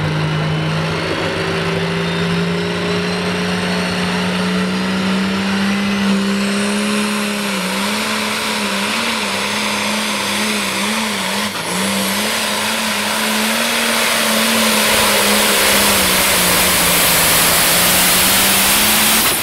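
Turbocharged diesel pulling tractor at full throttle hooked to the sled, its engine note stepping up about a second in and holding high, with a high turbo whistle climbing in pitch. The note wobbles up and down for a few seconds in the middle, then steadies and rises slightly until it drops off right at the end.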